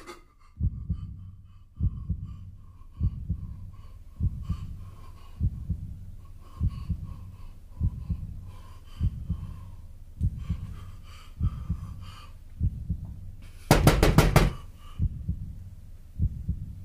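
Slow heartbeat sound effect: a soft low thump about every 1.2 seconds. About 14 seconds in comes a sudden burst of rapid knocking.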